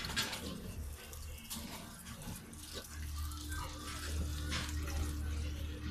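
Pig-barn ambience in a farrowing pen: a steady low hum that grows louder about three seconds in, with a few short scraping and rustling noises.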